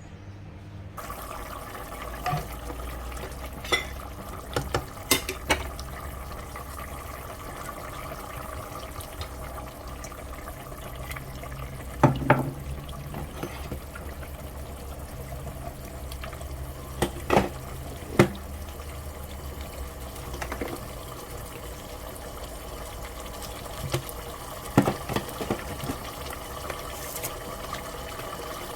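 Kitchen cooking sounds: a steady bubbling, running noise from a pot on the stove, with a few sharp knocks and clinks of a utensil against the pot, the loudest ones about 12, 17 and 25 seconds in.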